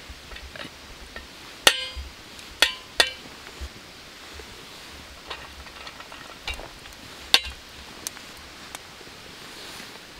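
Serving spoon clinking against a cooking pot and plates while biryani is dished out: several sharp, ringing clinks at uneven intervals, with quieter taps between.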